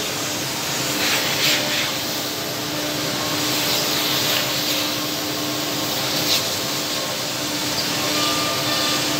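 Woodmaster WM-1500-2CNC double-end CNC tenoning machine running: a steady mechanical hum with one constant tone, broken by short hisses about a second and a half, four and six seconds in.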